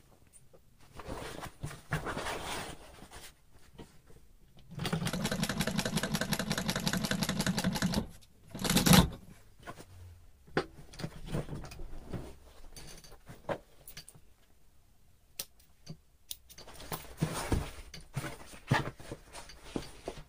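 Industrial sewing machine topstitching denim in short runs: a brief run about two seconds in, then a steady run of about three seconds. About a second later comes a single loud knock, followed by scattered clicks and another short burst near the end.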